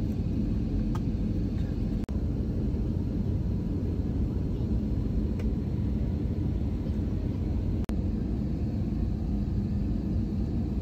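Steady low rumble of airliner cabin noise in flight: jet engines and airflow heard from inside the cabin. It cuts out for an instant twice, about two seconds in and again near eight seconds.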